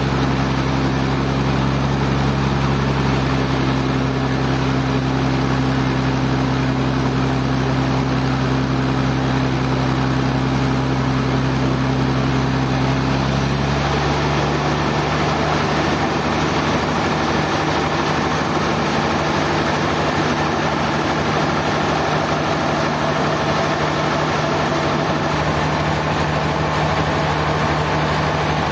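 Sawmill machinery running steadily with an engine-like hum. About halfway through the sound changes abruptly: the deepest hum drops away and the pitch of the running shifts.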